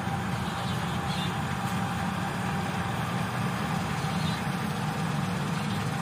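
Fiat Agri combine harvester running steadily in a rice crop, a dense, even machine noise that holds level and does not change.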